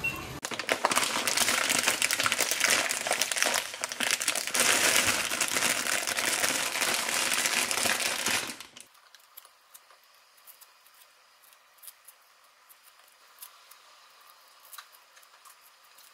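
Plastic bag crinkling and rustling loudly for about eight seconds as fruit is handled in it. It then stops abruptly, leaving only faint scattered taps and clicks of fruit being handled on a counter.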